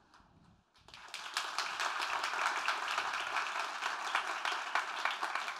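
Audience applauding, many hands clapping together; the clapping starts about a second in after a brief hush.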